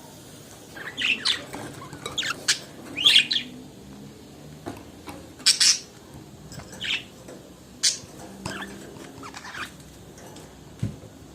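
Budgerigars chattering: short, sharp chirps and warbling calls in irregular bursts, the loudest about three and five and a half seconds in.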